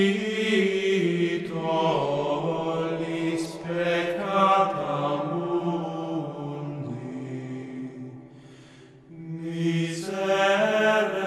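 Slow, chant-like vocal music: long sustained notes that move slowly in pitch, fading about eight seconds in and starting a new phrase about a second later.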